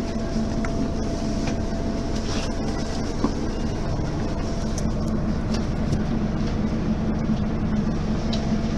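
Mercedes-Benz Citaro Facelift city bus's diesel engine running steadily at an even pitch, with a few faint clicks and rattles.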